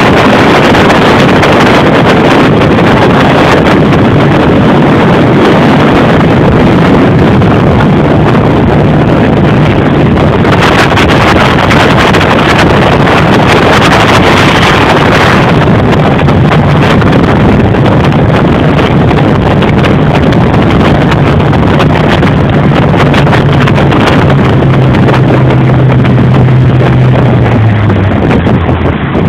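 An engine running steadily at speed, half buried under heavy wind rushing over the microphone. Near the end the engine's hum drops in pitch in steps as it slows down.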